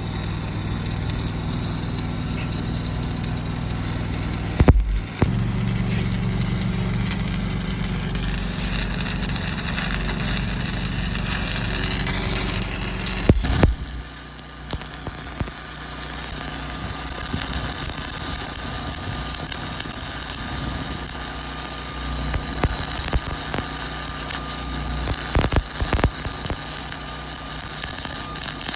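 An engine-driven welder on a service truck running steadily, with a steady crackling hiss over it. There is a sharp knock about five seconds in, and the sound changes abruptly about thirteen seconds in.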